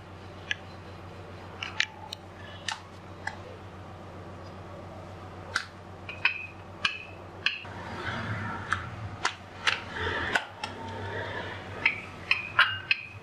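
Wooden rolling pin rolling out paratha dough on a hard countertop: irregular light clicks and taps as the pin and its handles meet the counter, with a soft rubbing in the second half. A steady low hum runs underneath.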